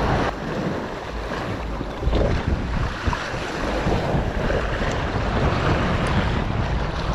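Wind buffeting the microphone over waves washing against jetty rocks: a steady rushing noise with a heavy low rumble.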